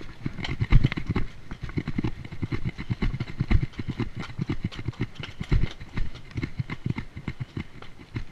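Hooves of a palomino colt walking up a rocky trail, striking stone and rock steps in an uneven run of low thuds and knocks, several a second.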